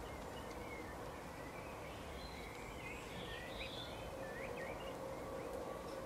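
Small songbirds chirping and twittering faintly in short, quick notes, some sliding up or down in pitch, over steady low outdoor background noise.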